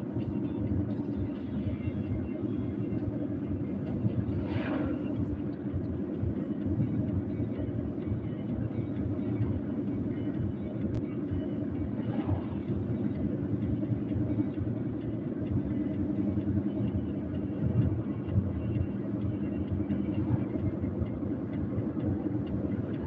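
Steady road and engine rumble heard from inside a vehicle moving at highway speed, with two brief higher swishes about five and twelve seconds in.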